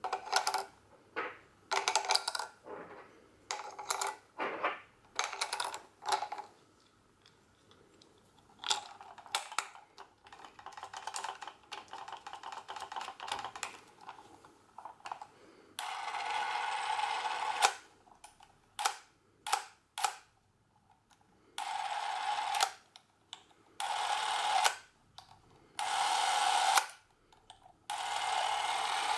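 Bauer C 6 makro Super 8 camera being handled: sharp plastic clicks and clatter as batteries go into its grip and the compartment is closed, with a run of rapid clicking. Then, from about halfway on, its motor runs in five short bursts of steady whirring, a sign that the camera works.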